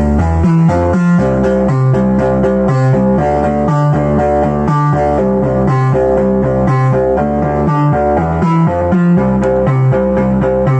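Analog synthesizer music from Behringer MS-1 and Pro-1 synths played through a Behringer Virtualizer Pro DSP2024P effects unit: a fast repeating bass-note pattern with pitched notes above it, playing without a break.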